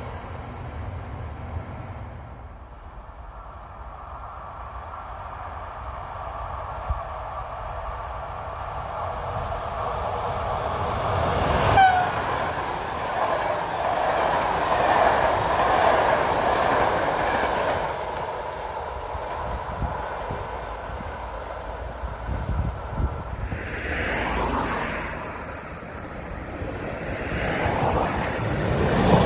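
Electric-hauled express passenger train passing at speed: the sound builds, a brief horn sounds about twelve seconds in, then the coaches rush past with wheel and rail noise for several seconds. Near the end the train approaches again and grows louder.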